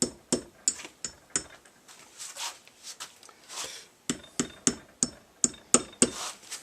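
Light, quick hammer taps on metal rod tines, seating them down into the holes of a wooden berry-rake head. The taps come about three a second, each with a brief metallic ring, in two runs with a pause of a couple of seconds between.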